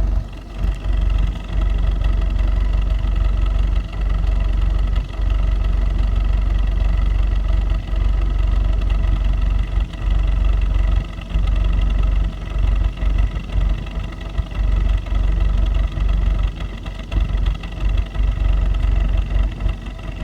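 2015 Volkswagen Jetta's 1.8 TSI turbocharged four-cylinder engine idling, its level dipping briefly and irregularly every second or few. The owner reports a misfire at idle.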